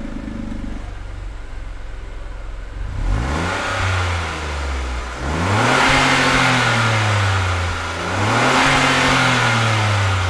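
Datsun redi-GO's three-cylinder petrol engine revved through its newly fitted AZ Performance valvetronic exhaust during a sound check: idling, then a short blip about three seconds in and two longer revs that rise and fall back. The note is very mild, with the stock centre silencer still in the line.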